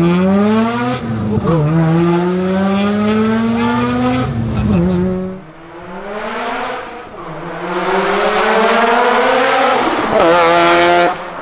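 Turbocharged 13B twin-rotor engine of a Mazda FD RX-7 accelerating hard, its pitch climbing steeply through the gears with a dip at each shift, about a second in and again near four and a half seconds. It eases off after about five seconds, then pulls up in pitch once more.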